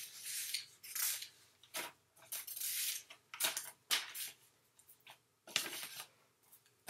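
Paper rustling as pages of a spiral-bound notebook are flipped and handled: a string of short, irregular rustles and scrapes.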